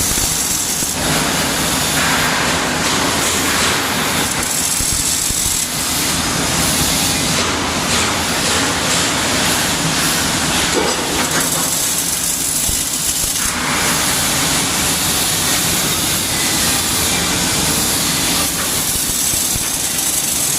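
Welding arc hissing and crackling steadily, with a low hum underneath; the middle of the hiss drops away briefly a few times.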